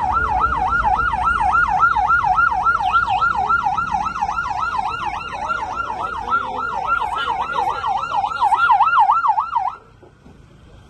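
Emergency vehicle siren sounding in a fast yelp, its pitch sweeping up and down about three to four times a second, then cutting off suddenly near the end.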